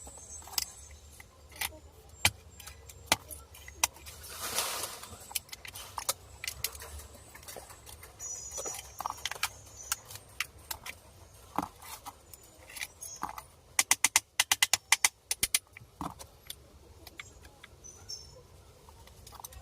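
Small metal parts and hand tools clinking and tapping at scattered intervals during hands-on machine repair. About four seconds in there is a rush of noise lasting about a second, and near three-quarters through a quick run of about a dozen clicks.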